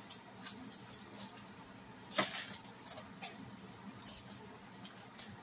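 Aluminium foil crinkling and metal kitchen tongs clicking as a pressed slice of green plantain is unwrapped from the foil and lifted out: faint scattered crackles and ticks, the loudest a little over two seconds in.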